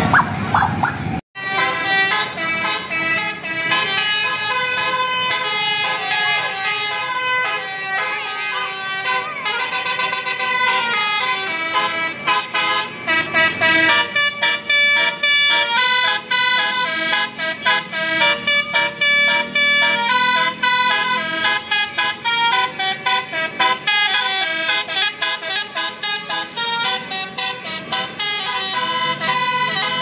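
Tour bus telolet basuri horn, a multi-note musical air horn, playing a fast, continuous melody of flute-like tones. The sound cuts out briefly about a second in.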